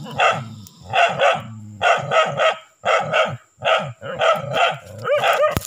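A dog barking repeatedly, about two barks a second and some in quick pairs, with a sharper rising-and-falling yelp near the end. It is a dog holding a large monitor lizard at bay.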